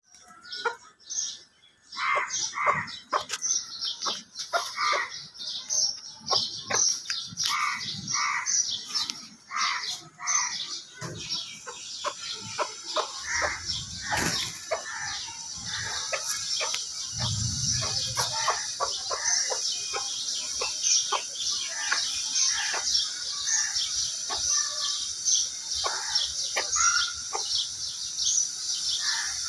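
Chickens calling: a dense, continuous run of short, high-pitched chirps, with lower clucking calls mixed in.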